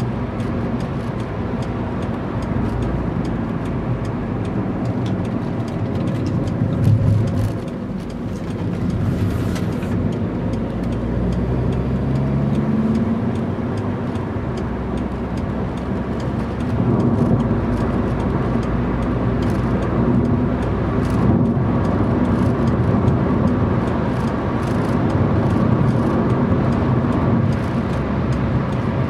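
Car engine and road noise heard from inside the cabin of a hatchback being driven on a race circuit, the engine note rising and falling as the car accelerates and slows. A brief louder low rumble comes about seven seconds in.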